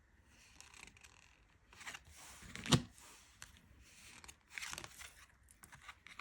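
Tarot cards and card packaging being handled: several short papery rustles and slides, with one sharp tap a little before the middle as the loudest sound.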